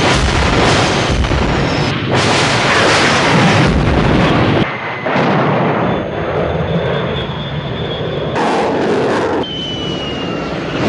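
Battle sound effects of jet aircraft and explosions, in loud noisy stretches that break off abruptly about two, five and nine and a half seconds in.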